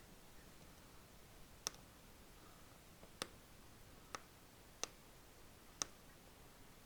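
Five sharp, light clicks spaced about a second apart against near silence, from small screws and tools being handled while the screws holding a OnePlus One's inner back are taken out.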